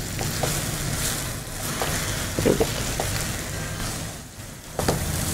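Mashed potato and semolina mixture sizzling in a nonstick frying pan while a silicone spatula stirs and presses it, as it cooks down into a dough.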